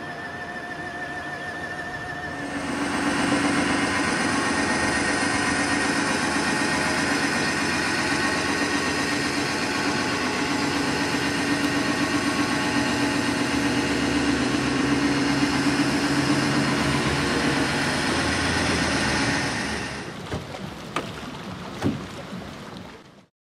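Cordless drill driving the propeller of a homemade canoe outboard motor, running at a steady speed with a steady hum and whine. It gets louder about two and a half seconds in and drops away near the end, leaving a few sharp clicks.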